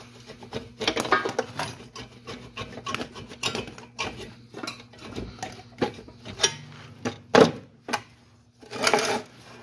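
Metal engine parts clicking, rattling and scraping as the cylinder head is worked off an air-cooled VW flat-four, with a few louder clanks near the end.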